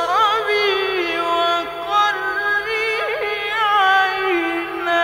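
Male Quran reciter chanting in the melodic mujawwad style, a single high voice drawing out one long phrase of held notes with ornamented turns sliding up and down.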